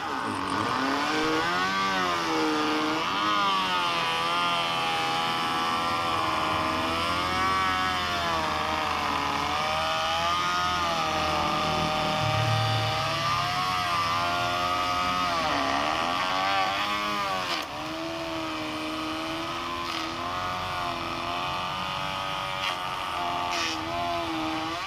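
Handheld electric planer running and cutting along the edge of a wooden door panel, its motor whine dipping and rising in pitch again and again. It runs a little quieter and steadier during the last several seconds.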